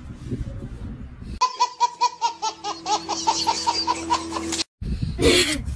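A baby laughing in quick repeated peals, about four a second. The laughter starts about a second and a half in and cuts off suddenly, followed by a short loud burst of noise just before the end.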